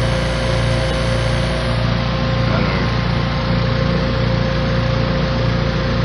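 The outdoor unit of a 1988 Tempstar 4-ton R-22 heat pump running in cooling, its compressor and condenser fan giving a steady hum with a constant mid-pitched tone. It is running while being recharged after a refrigerant leak, with the suction line temperature dropping.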